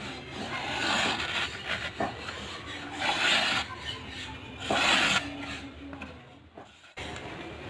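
Slow rasping strokes of a file or abrasive worked by hand against the workpiece, about four of them, each under a second long and spaced a second or two apart.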